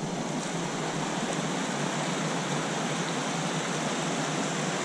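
Small mountain stream running over a short rock cascade into a pool, a steady rushing splash of water.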